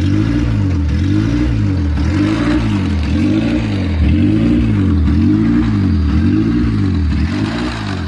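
Car engine idling with its revs rising and falling evenly about once a second, a hunting idle that the owner takes for a bad idle air control valve.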